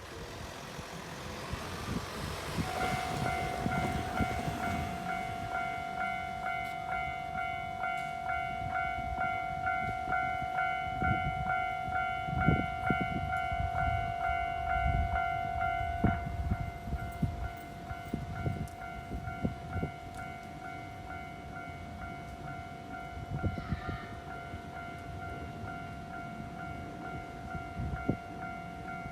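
Japanese railway level-crossing warning bell starting about three seconds in and ringing in a fast steady repeat over the rumble and wheel knocks of a passing train. About halfway through, the loudest bell tone stops while a quieter one keeps ringing.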